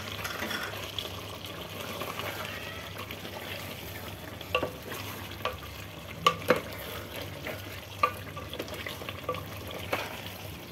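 Chicken yakhni bubbling and sizzling on full flame in an aluminium pot while fried onions are stirred in with a spoon, with a few sharp clicks of the spoon knocking against the pot.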